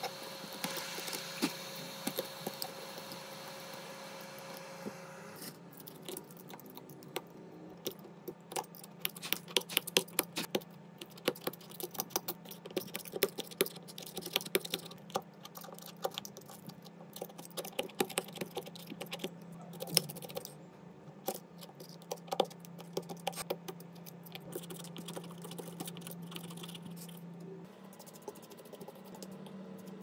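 Rapid, irregular clicking and tapping of small hand tools working on an iPhone 14 Pro's body, over a steady low hum. A higher machine tone stops about five seconds in.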